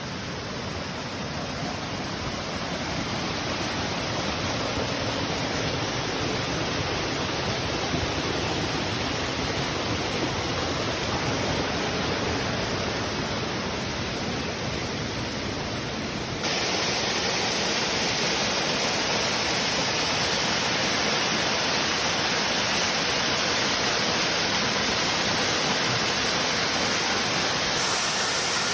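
Waterfall rushing in a steady roar of falling water, with no break or rhythm. About halfway through it jumps abruptly louder and brighter.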